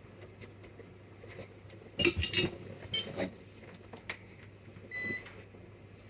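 Metal tools clattering on the workbench about two seconds in, with a few lighter clicks after. Near the end comes one short high beep from a digital multimeter set for continuity checks on the motherboard.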